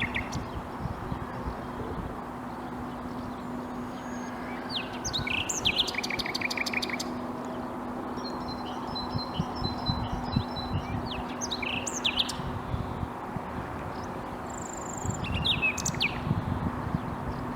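Common nightingale singing in three separate phrases of whistles and fast repeated notes, with pauses between them. A steady low hum and background noise run underneath.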